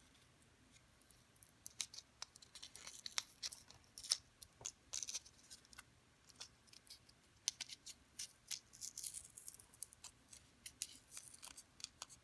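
Faint, irregular clicks and scratches of small metal and plastic parts being handled, as LR41 button-cell batteries are prised out of a LEGO light brick and the new cells are readied.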